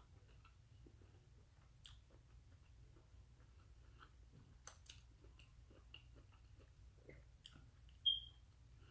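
A person chewing a mouthful of vegetable omelette, with faint soft mouth clicks and smacks, and a brief high ping about eight seconds in.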